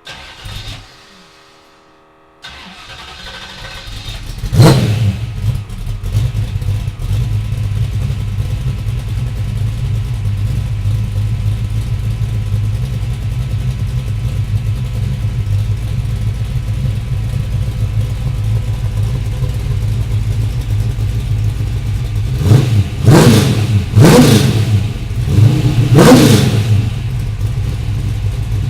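A 351 Windsor stroker V8 in a 1982 Ford Mustang starting a couple of seconds in and flaring up as it catches, then idling steadily through freshly mocked-up 3-inch tailpipes. Near the end it is revved three times in quick succession.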